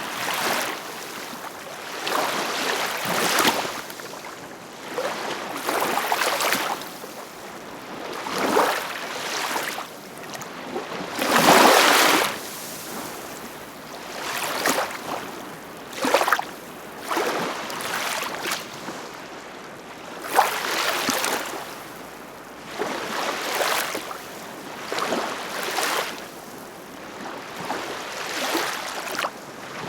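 Ocean waves washing in and pulling back, a fresh surge every two seconds or so at an uneven pace, the loudest about twelve seconds in.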